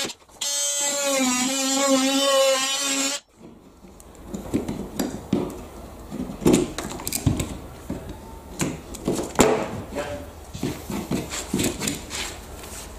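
Cordless oscillating multi-tool running with a steady high buzz as its blade cuts through plasterboard, dropping out for a moment just after the start and cutting off about three seconds in. After that come scattered knocks and crumbly scraping as the cut-out piece of plasterboard is worked loose and pulled from the wall.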